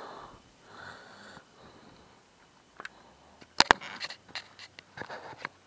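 Handling noises of fishing tackle as a lure is pulled in by hand: soft rustling and scattered sharp clicks, the loudest a quick double click about three and a half seconds in.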